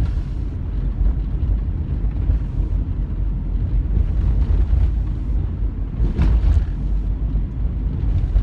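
Steady low rumble of a car's road and engine noise heard from inside the cabin while driving.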